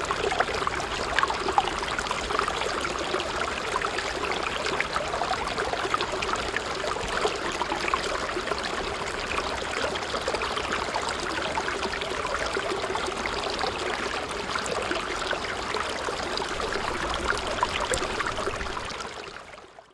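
Steady stream of water trickling and splashing, the flow of a mini water pump in a small model. It fades out just before the end.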